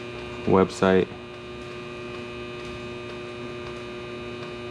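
A steady electrical hum with an unchanging pitch, after a single spoken word about a second in.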